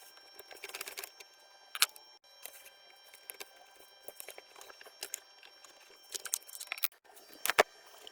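Handling noise in a small room: rustling and scattered light clicks, with a sharp knock about two seconds in and another near the end, over a faint steady high hum.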